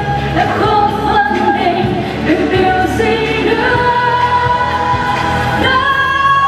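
Live pop music: a female lead vocalist sings into a handheld microphone over a full band with drums. She holds long notes in the second half.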